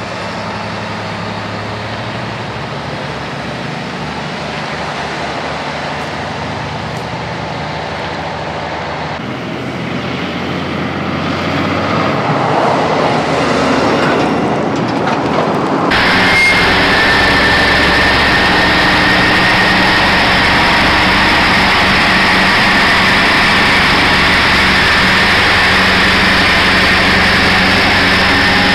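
Heavy diesel trucks hauling oversize loads: engine and road noise swell as a truck passes, then about two-thirds of the way in the sound cuts abruptly to a louder, steady drone of heavy engines with a thin steady whine.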